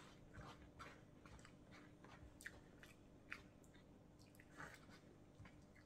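Faint chewing and wet mouth clicks from eating, with irregular light taps of a fork scooping food from a bowl.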